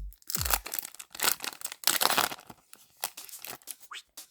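A trading-card booster pack's wrapper being torn open and crinkled: a series of irregular ripping and crackling sounds.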